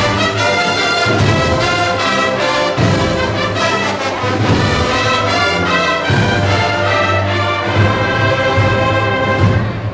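Brass band playing a Holy Week procession march, with sustained brass chords over drum beats.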